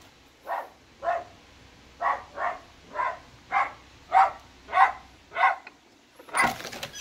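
A dog barking over and over, about ten barks a little over half a second apart, followed near the end by a short louder clatter as the front door is opened.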